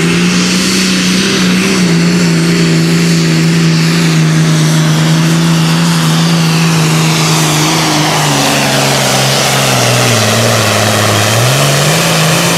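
Super Farm class pulling tractor's diesel engine at full throttle, pulling the weight sled: one loud, steady drone whose pitch sags lower about ten seconds in as the load builds, then climbs back up near the end, with a high whistle sliding downward over it.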